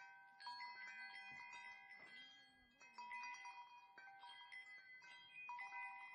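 Faint, clear chime tones on a few fixed pitches, struck at random moments and left to ring, often several at once.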